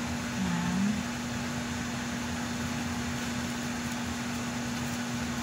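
Steady motor hum with an even hiss from a running appliance, with a short voiced 'hmm' about half a second in.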